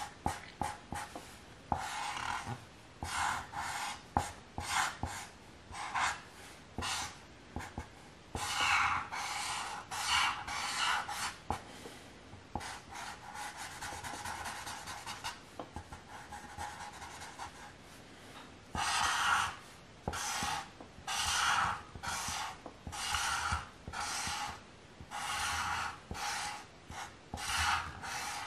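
Felt-tip marker rubbing on paper in repeated coloring strokes, a scratchy swish about once or twice a second. A spell of fainter, steadier scribbling comes in the middle.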